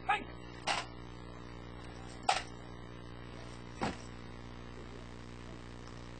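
Four short, sharp knocks at uneven gaps, the third the loudest, from a guard of honour working through rifle drill after a drill command.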